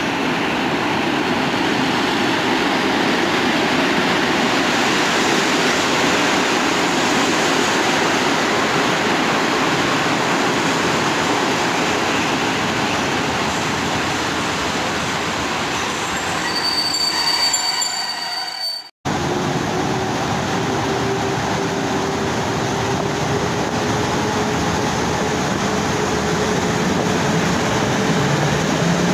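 Electric-hauled passenger train rolling slowly along the platform under a station train shed, with a high squeal of wheels or brakes near the two-thirds point. The sound cuts off sharply, and a second electric train takes over: rolling noise with a steady hum from the locomotive that rises slightly in pitch.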